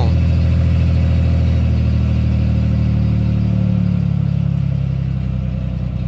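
1989 Chevrolet Celebrity's 2.8 L V6 in reverse with the throttle held, running at raised rpm smoothly, the idle misfire gone. About four seconds in the revs drop back toward idle.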